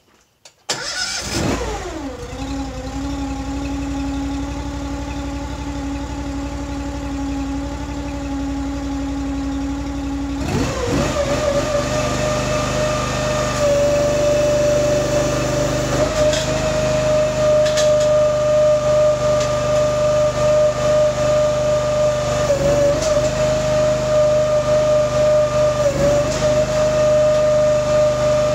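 Honda iGX800 V-twin engine on a Wolfe Ridge box wedge firewood splitter starting about a second in and idling. About ten seconds in it revs up and runs steadily at working speed with a high steady whine, its pitch dipping briefly twice near the end under load.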